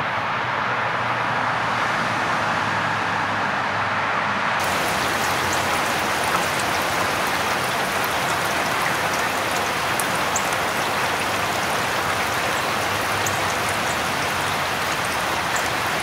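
Steady, even rushing hiss with no pitch, like rain, with faint scattered ticks high up after the first few seconds.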